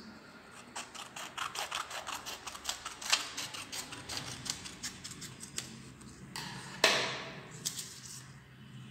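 Scissors snipping through a sheet of paper in a quick run of short cuts, several a second. Near the end comes a longer rustle of paper being handled.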